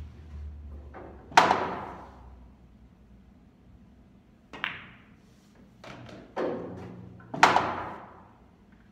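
Pool shot on a billiard table: a cue tip striking the cue ball, balls clicking together, and loud knocks with a brief ring as a ball drops into a pocket. The two loudest knocks come about a second and a half in and near the end.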